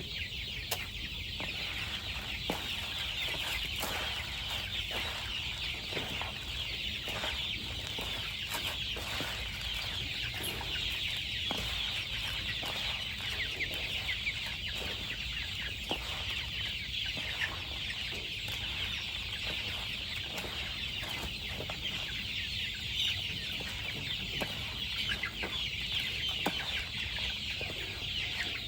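A flock of chickens clucking and calling without pause, many birds at once in a dense high chatter, with scattered short taps throughout.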